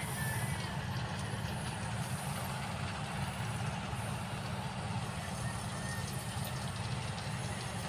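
A steady low rumble, even throughout.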